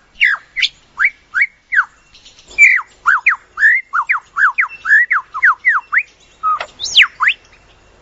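Male superb lyrebird singing: a fast series of loud, clear whistled notes, each sweeping down in pitch, running quicker through the middle, with two higher sweeping notes near the end.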